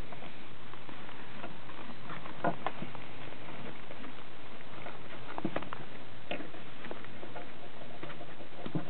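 Scattered small clicks and scratches of a thin headphone cable and a helmet's plastic parts being handled as the cable is threaded through, over a steady hiss.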